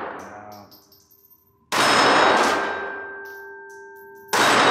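Two shots from a Beretta 3032 Tomcat .32 ACP pocket pistol, about 1.7 seconds in and near the end, each followed by a long ringing decay; the tail of the previous shot fades at the start.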